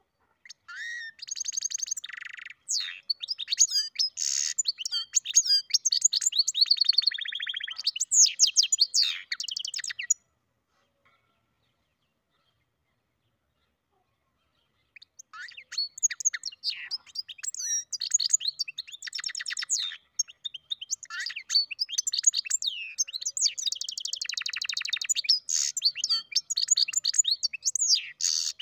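European goldfinch × canary mule singing: two long bouts of rapid twittering notes and fast buzzy trills, separated by a pause of about five seconds.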